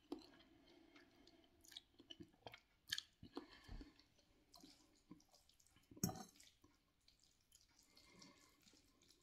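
Faint sounds of a person eating noodles: chewing and slurping, with a few short sharp clicks scattered through, the loudest about six seconds in.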